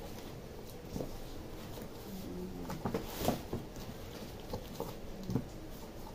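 A cardboard shipping box being handled and its flaps opened, making scattered light knocks and cardboard rustles. A pigeon coos once about two seconds in.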